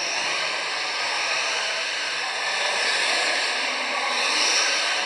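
Several 1:10 electric RC touring cars racing on a carpet track: a steady whine and hiss of their motors and tyres, growing a little louder about three to four seconds in as a car passes close.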